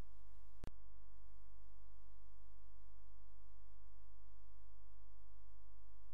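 Steady electrical hum with a stack of even overtones, broken once by a sharp click under a second in.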